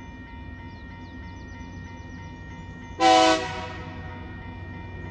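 One short horn blast from a TasRail TR class diesel locomotive about three seconds in, sounding at the level crossing as the train approaches, then dying away. Under it a level crossing bell rings steadily.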